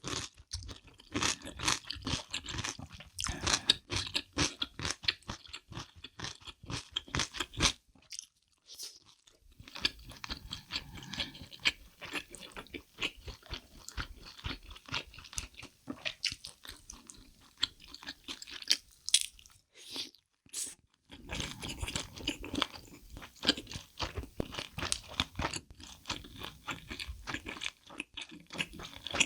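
Close-miked eating: crunchy bites and wet chewing, a dense run of crackles with two short pauses, about eight seconds and twenty seconds in.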